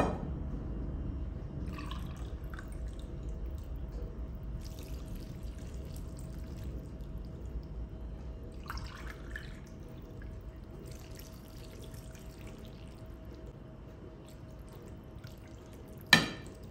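Chicken broth poured from a glass over shredded chicken in a ceramic baking dish, coming in several short pours with trickling and dripping. There is a sharp clink of glass at the start and a louder one near the end.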